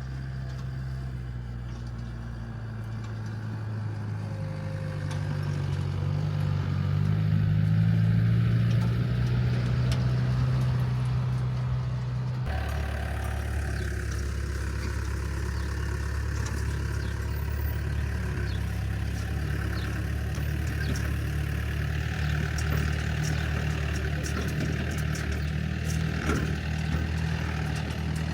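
A motor vehicle's engine running with a steady low hum, rising in pitch and loudness over the first several seconds as if gathering speed. The sound changes abruptly about twelve seconds in, then a steady hum continues with scattered light rattles.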